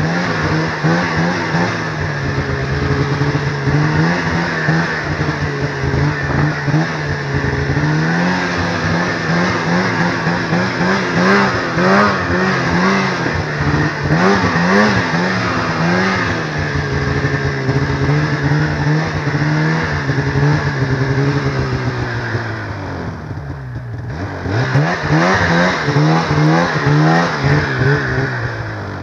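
Snowmobile engine running hard, its pitch rising and falling with the throttle. About three-quarters of the way through it backs off and drops in pitch briefly, then revs back up.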